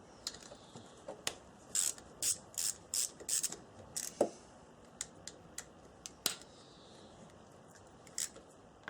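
Hand tools clicking and clinking on metal, a quick run of about five sharp clicks followed by scattered single ones, as work goes on around the starter motor of a Honda TRX500FA quad.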